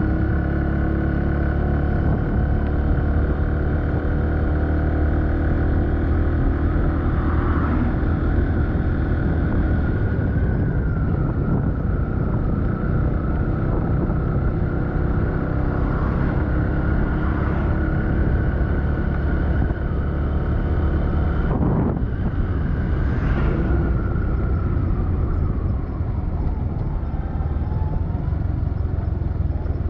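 A motor vehicle on the move, its engine running steadily under a heavy low rumble of road and wind noise, with a short knock about two-thirds of the way in.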